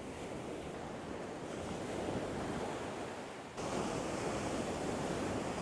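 Ocean surf breaking and washing up the beach, a continuous rushing roar of waves that steps up louder about three and a half seconds in.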